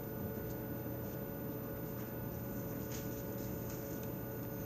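Steady background hum made up of a few constant tones, with a handful of faint ticks; no distinct sound event.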